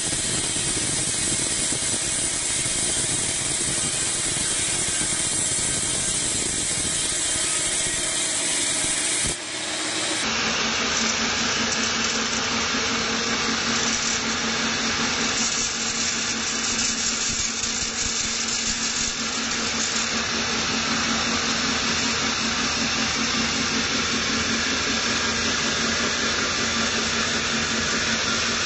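Band sawmill sawing lengthwise through a teak log on its rail carriage: a steady, loud cutting noise of the blade in the wood, with the machine's motor running. About nine seconds in the sound briefly breaks, and after that a steady hum runs beneath the cutting.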